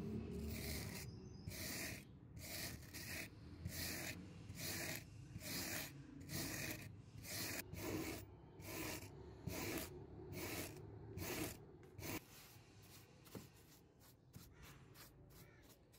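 Hand wire brush scrubbing rust off an old steel spanner wrench, in rasping back-and-forth strokes roughly every three-quarters of a second. After about twelve seconds the strokes turn quicker and lighter.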